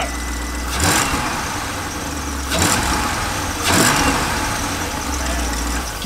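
2000 Chevrolet Corvette C5's LS1 V8 running at idle with three quick blips of the throttle, still misfiring.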